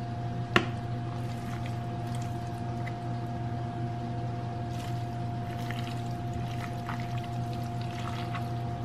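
Pasta salad being stirred and lifted with a serving spoon in a large bowl: faint wet squishing and small scrapes, with one sharp knock of the spoon against the bowl about half a second in. A steady electrical hum with a constant mid-pitched tone runs underneath.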